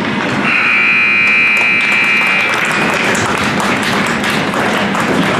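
Arena scoreboard buzzer in an ice hockey rink sounding one steady tone for about two seconds, starting about half a second in. It plays over steady rink noise with scattered sharp clicks.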